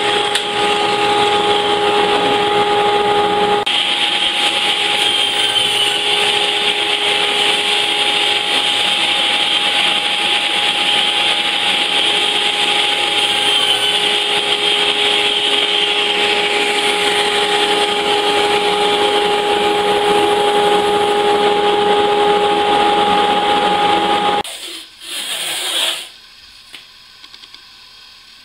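Table saw running with a steady motor whine and blade noise while cutting wood, cutting off abruptly about 24 seconds in; the last few seconds are much quieter.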